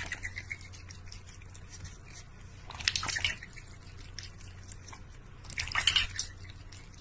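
A cat pawing at the water in a steel bowl: splashes and drips come in three bursts, at the start, about three seconds in and about six seconds in, over a faint steady low hum.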